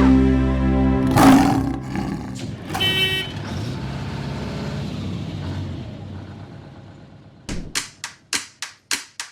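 A jingle's last notes, then about a second in a loud roar sound effect that fades away over several seconds. Near the end, sharp claps or percussion hits start at about three a second.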